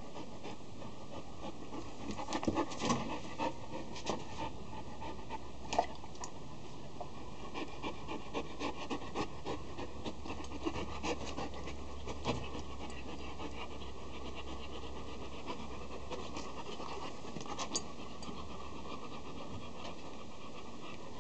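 Ten-month-old Akita puppy panting while mouthing at a hand, with scattered short clicks and scuffs, thickest in the first half and again briefly near the end.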